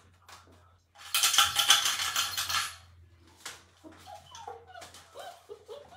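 A loud clatter of many small hard pieces rattling for about two seconds, starting about a second in. After it, puppies whimper and whine in short cries that rise and fall.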